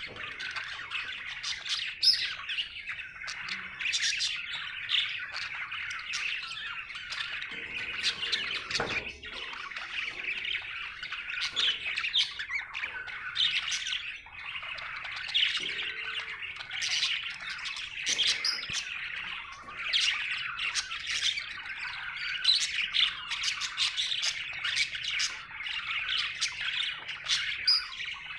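Budgerigar chattering without pause, a steady stream of quick chirps broken by sharper squawks.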